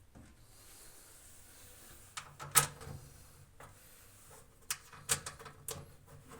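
A few sharp clicks and knocks of washing machine housing parts being handled, the loudest about two and a half seconds in.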